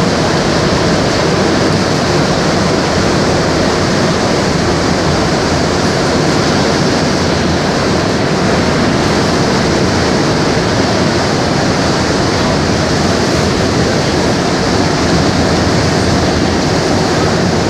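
Montreal Metro train on rubber tyres running at speed through a tunnel, heard from inside the car: a loud, steady roar of tyres and running gear.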